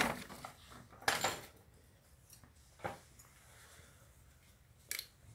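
Plastic model-kit parts being handled: four short clicks and rustles, the one about a second in lasting longest.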